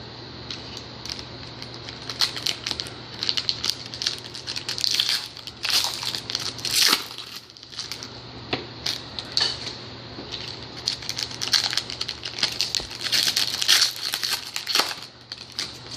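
Foil trading-card pack wrappers crinkling as packs are opened and handled, in two spells of dense crackling, with a slight tearing sound.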